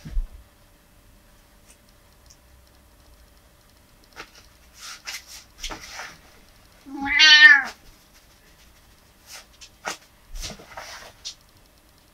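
A domestic cat meows once, a single call of under a second that rises and then falls in pitch, about seven seconds in. A low thump right at the start and scattered soft clicks and rustles of movement.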